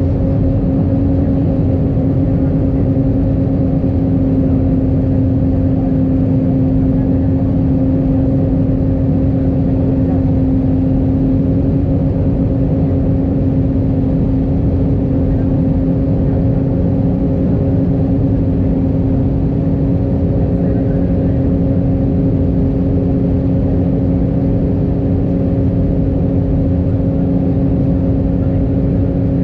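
Cabin noise of an Airbus A319 on its approach, heard from a seat by the wing: the steady drone of the jet engines and rushing air, with a constant low hum.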